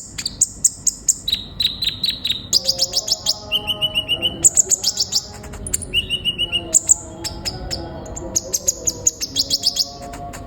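Kolibri ninja sunbird singing a fast, high-pitched song: rapid runs of sharp chirps, about six notes a second, broken by short buzzy trills.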